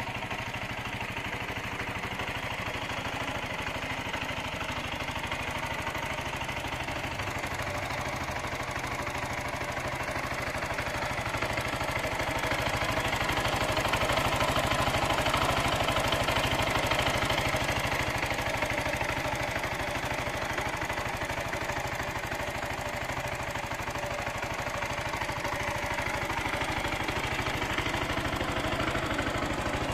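Zontes G1 motorcycle's single-cylinder engine idling steadily at operating temperature, louder for a few seconds around the middle.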